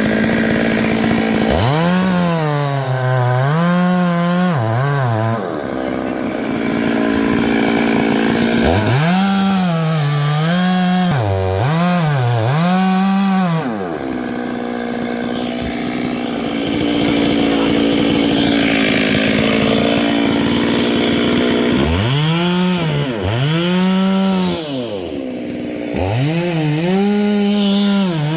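Chainsaw running and cutting wood. Its engine pitch dips and climbs back again and again as the chain bites in, in several spells of cutting with steadier running in between.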